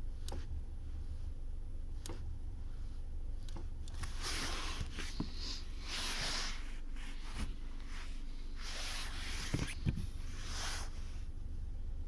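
Cabin sound of a 2020 Volkswagen Polo with the 1.6-litre manual: a steady low engine rumble with two stretches of rushing noise. Near the end come a pair of sharp knocks, the kind of knock the owner hears from the drivetrain when the clutch is let out.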